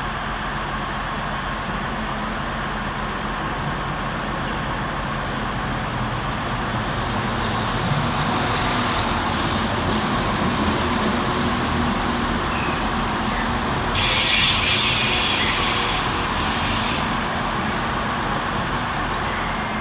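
Northern Class 195 Civity diesel multiple unit running into the station, its engines getting louder as it draws alongside. About fourteen seconds in there is a loud burst of hiss lasting about two seconds, followed by a shorter one.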